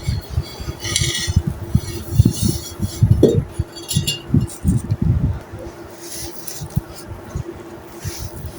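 Chunks of colourful dry clay crumbling in a clay pot: a run of dull knocks and clinks, with scratchy crunches now and then.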